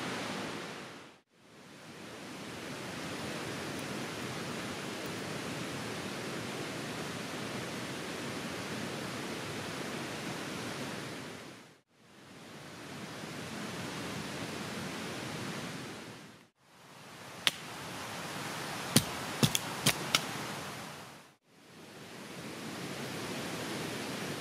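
Steady rushing of river rapids, fading out and back in several times. A few sharp clicks about two-thirds of the way through.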